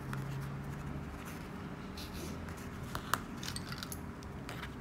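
Soft handling noise of yarn being pulled tight and knotted by hand with a sewing needle, with a couple of small sharp clicks about three seconds in.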